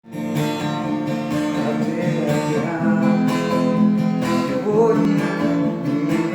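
Acoustic guitar strumming chords steadily as a song's introduction, before any singing.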